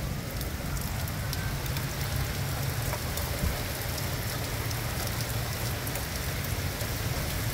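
Steady rain falling and splashing on hard surfaces, with scattered sharp drop hits.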